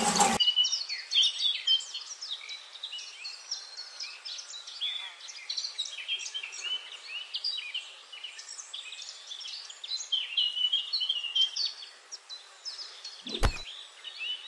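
A chorus of many small birds chirping and twittering, dense overlapping short high calls. A single sharp knock comes near the end.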